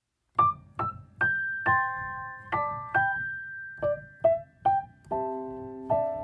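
Gentle piano music: single notes picked out one after another, each ringing and fading, then fuller chords near the end.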